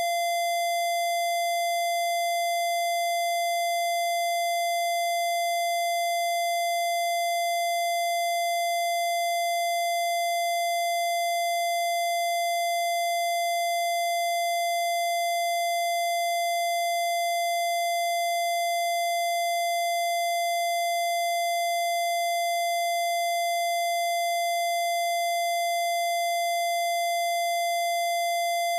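A single steady electronic tone, a synthesized Rife-style 'healing frequency', held at one unchanging pitch with faint higher overtones.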